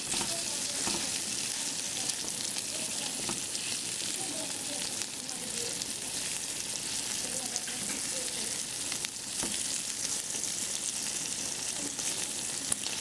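Pieces of pork sizzling and crackling as they brown in a frying pan, with a spatula now and then scraping and turning them.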